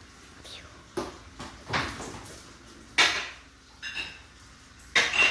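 A handful of sudden sharp clatters and knocks, about a second apart, with a short high squeak about four seconds in.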